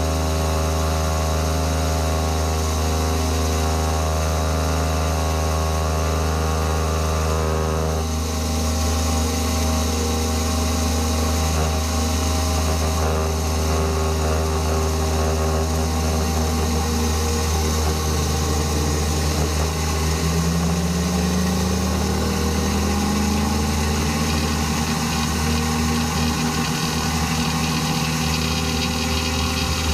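CNC-converted benchtop mini mill running, its quarter-inch carbide roughing end mill cutting a contour in quarter-inch steel plate at 7 inches per minute under flood coolant, over a steady motor hum. The sound changes about eight seconds in, and a tone slowly rises in pitch through the second half.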